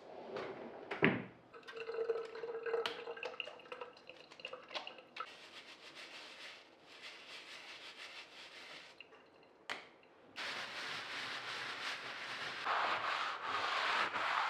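Kitchen sounds of water: a knock and a few seconds of clinking, then water running, which gets louder and fuller from about ten seconds in and swells near the end.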